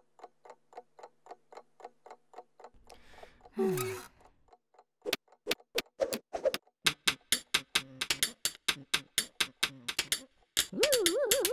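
A wall clock ticking steadily, about four ticks a second. A short groaning voice comes about three and a half seconds in. From about five seconds a pencil is scraped against a wooden desk in a quick run of sharp scratches, and a cartoon voice starts near the end.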